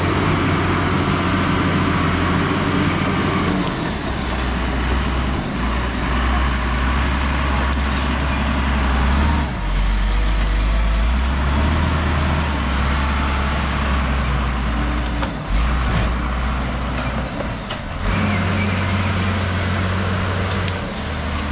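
Case crawler bulldozer's diesel engine running under load, its pitch dropping and rising several times as the machine pushes through brush.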